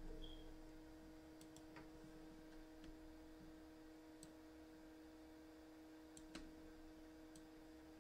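Near silence: a faint steady hum with a few scattered faint computer mouse clicks, one a little louder about six seconds in.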